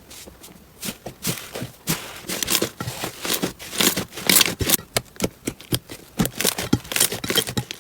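Slime being squeezed and worked by hand, with dense, irregular crackling and popping.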